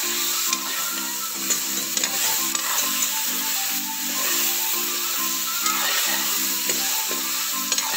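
Pieces of fish sizzling in hot oil in a metal wok, stirred with a metal ladle that scrapes and clicks against the pan. Background music with a repeating melody plays under it.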